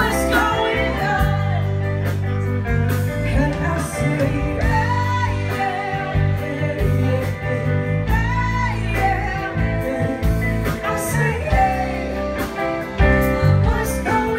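A band playing a song: a singer's voice over guitar, a steady bass line and drums.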